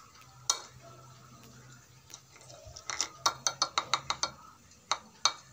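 A utensil clinking against a ceramic plate as fried potato pakoras are set down on it: one clink about half a second in, a quick run of about eight clinks around the three-to-four-second mark, then two more near the end.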